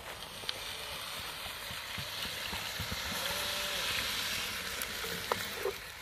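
Food sizzling in a hot cast-iron camp oven over a wood fire, the hiss swelling to a peak a few seconds in and then dying down. A few sharp clicks near the end.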